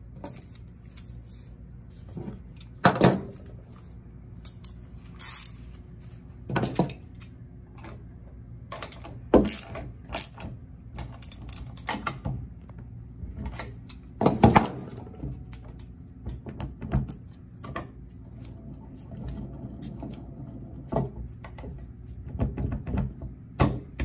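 Scattered metallic clicks, clinks and knocks of hand tools and caster hardware being handled and set down on a wooden table while a wheel lock is fitted to a caster, its axle turned with a wrench. The knocks come singly and irregularly, a few of them loud.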